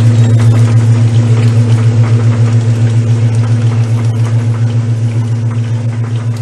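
Old Brastemp Luxo top-loading washing machine running: a loud, steady motor hum with a quick, even pulsing, slowly getting quieter.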